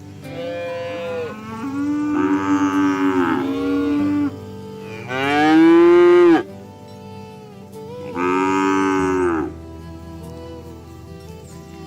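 Cattle mooing: four long, drawn-out calls that rise and fall in pitch, the third the loudest, over soft background music.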